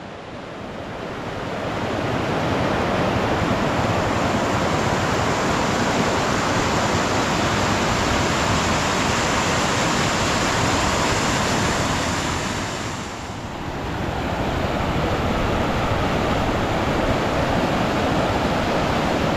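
Loud, steady rushing of floodwater, an even roar of moving water that briefly eases about two-thirds of the way through.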